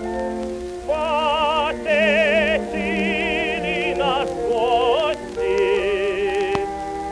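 Male operatic tenor singing an old Russian romance in long held notes with wide vibrato, over a sustained instrumental accompaniment. It is an early acoustic recording, dull above the mid-range, with faint surface hiss and clicks. Before the voice comes in, about a second in, only the accompaniment is heard.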